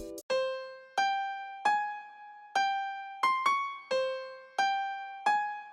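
Background music: a slow, sparse melody of single electric piano notes, each ringing out and fading before the next.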